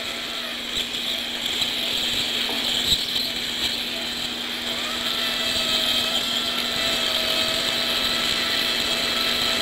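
High-speed otologic surgical drill running steadily, its burr grinding down temporal bone around the labyrinth, over a constant hiss. A thin whine comes in about halfway through.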